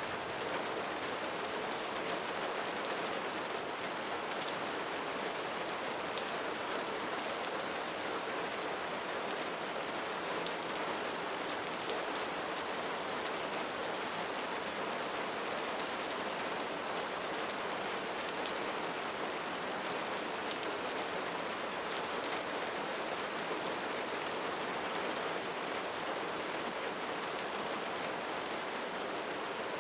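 Steady rain falling on leaves, an even hiss full of small scattered drop ticks.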